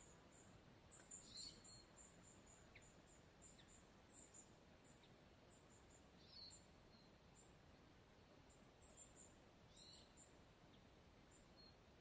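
Near silence, with faint, thin, high chirps repeating on and off and a few short bird calls about a second in, about six seconds in and about ten seconds in.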